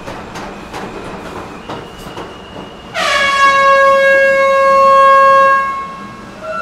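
Train horn sounding one long, loud blast of about three seconds, starting about halfway in, over the general bustle of a crowded station platform.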